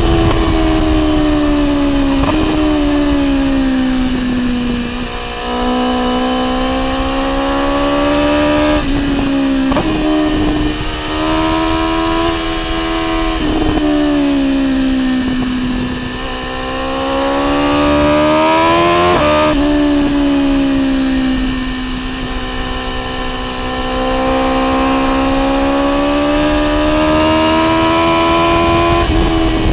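BMW S1000R's inline-four engine through an Akrapovic exhaust, under way with the throttle opening and closing. The engine note rises and falls steadily, with a few quick breaks and jumps in pitch at gear changes.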